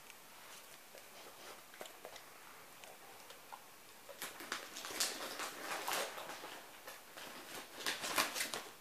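Rottweiler chewing with wet, smacking mouth noises: faint scattered clicks at first, then a run of irregular crackling clicks from about four seconds in, loudest near the end.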